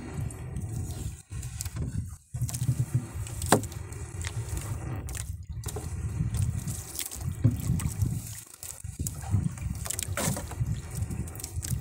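Wet fishing net being hauled hand over hand into a wooden boat: water dripping and trickling off the mesh as the net and fish rub and scrape against the hull, with a sharp click about three and a half seconds in.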